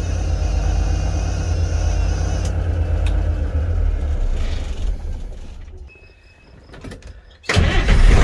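A vehicle engine idles with a steady low rumble that fades away about five seconds in. After a couple of seconds of quiet, an engine fires up suddenly near the end and runs loudly.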